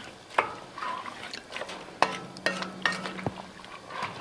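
Wooden spoon stirring a thick mix of beans, onion and ham in an enamelled Dutch oven: wet scraping with several sharp knocks of the spoon against the pot's sides.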